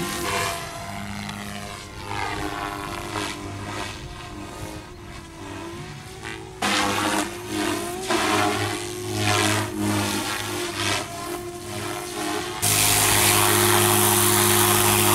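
Electric Goblin 380 RC helicopter's motor and rotor whining as it flies aerobatics overhead, the sound sweeping up and down as it turns and passes. About three-quarters of the way through it becomes suddenly louder and steady, with a rushing of the rotor blades, as the helicopter sits on the grass close by with its rotor spinning.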